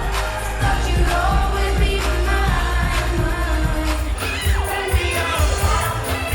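Pop music with singing over a steady, strong beat.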